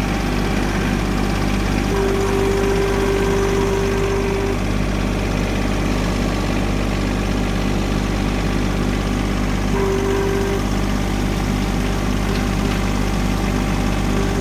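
John Deere compact tractor engine running steadily. A steadier higher whine from the front-loader hydraulics comes in for about two seconds early on, briefly again near the middle and near the end, as the loaded bucket is worked to dump grass clippings.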